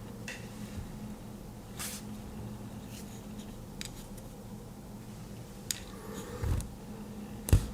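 Light clicks and scratches from handling the small parts of a disassembled headphone driver, over a steady low hum. A dull thud comes about six and a half seconds in, and a sharp knock near the end.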